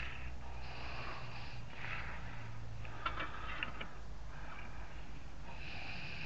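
A person breathing hard through the nose in a few long breaths while straining at work, with a few light metal clicks from hand tools about halfway through, over a low steady hum.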